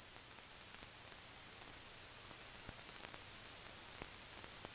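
Near silence: steady soundtrack hiss and low hum, with a few faint ticks.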